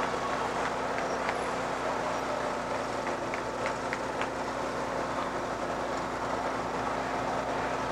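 Steady road noise from the camera vehicle driving ahead of the runners, mixed with roadside crowd noise, with a few brief sharp sounds about three to four seconds in.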